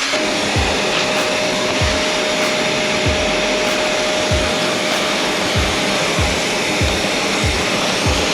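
Parkside PWBS 180 B2 wall and floor sander running steadily, its motor and dust-extraction fan making a loud, even whir with a thin steady tone.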